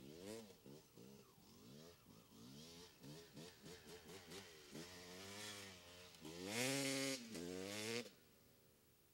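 Dirt bike engine revving up and down over and over as it is ridden, its pitch rising and falling in quick swells. Near the end it builds to longer, louder revs, then cuts off suddenly about eight seconds in.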